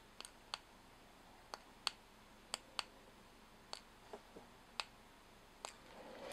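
Small UV flashlight's push-button switch clicking about ten times at uneven intervals, as it is switched on and off to cure Diamond Hard UV resin on monofilament shrimp eyes. A louder knock comes right at the end.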